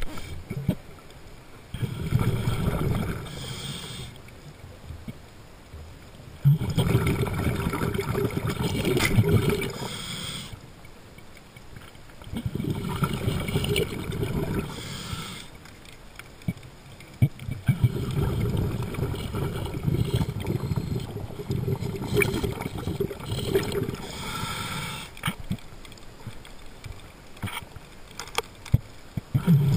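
Underwater, a scuba diver's regulator breathing close to the microphone: each exhalation sends out a stretch of gurgling bubbles lasting a few seconds, with quieter inhalation gaps between, and a few faint clicks.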